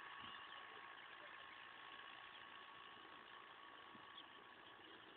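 Landini 6550 tractor engine running steadily and faintly, with a thin constant whine over it.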